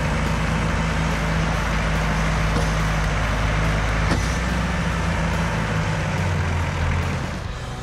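A heavy vehicle engine running steadily under load, with a deep, even hum that fades out near the end.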